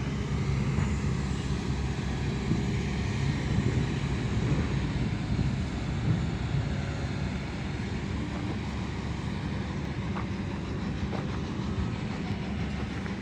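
Heavy machinery engine running steadily, a low even drone.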